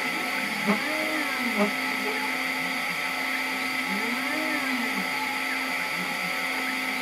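Stepper motors of a CNC 3018 engraver whining in rising and falling glides as the laser head and bed move back and forth while engraving, over a steady whirring hum. Two short louder ticks come in the first two seconds.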